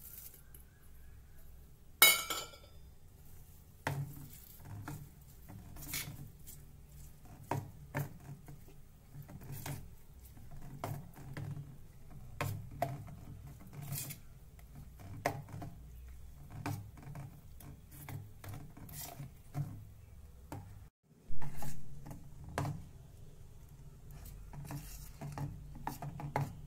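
Steel spoon stirring thick besan batter in a stainless steel bowl, clinking and scraping against the bowl in irregular strokes, with a louder metal clink about two seconds in. A steady low hum runs underneath.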